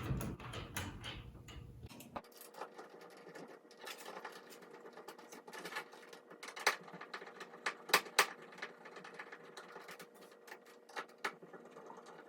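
Dimmer switch's mounting screws being driven into the wall box with a screwdriver: irregular small clicks and metal scraping, with a few sharper clicks about two thirds of the way through.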